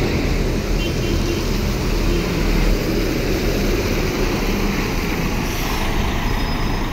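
Mercedes-Benz intercity coach pulling away and passing close by, its rear-mounted diesel engine running with a steady low rumble.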